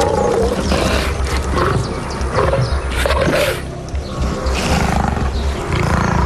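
Big cats calling in several rough, irregular bursts, set against a music score.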